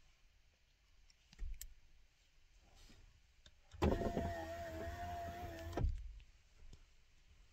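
Car's electric power window motor running for about two seconds, a steady whine with the glass sliding in its channel, stopping with a clunk. A brief soft knock comes earlier, about a second and a half in.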